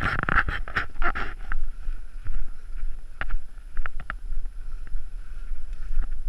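Footsteps in snow at a walking pace, with wind rushing on the body-worn action camera's microphone.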